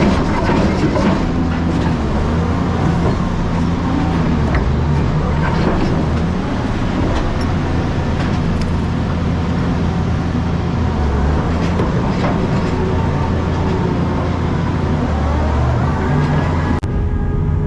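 Heavy construction machinery running: a steady diesel engine drone with scattered clanks and knocks. The sound changes abruptly to a different machine near the end.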